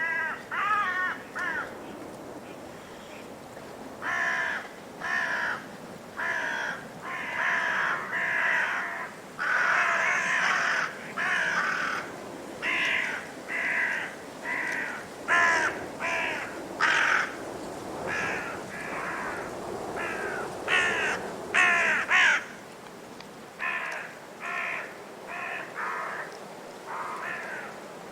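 An animal calling over and over: about two dozen short, fairly high-pitched calls, roughly one a second, some in quick runs of two or three.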